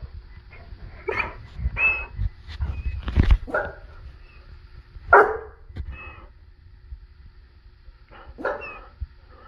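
A dog barking in about six short separate calls, some with a thin high whine through them. The loudest call comes about halfway through.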